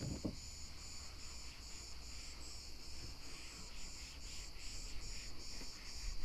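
Insects, crickets by the sound, chirping steadily in an even pulsing rhythm of a few pulses a second, over low background noise.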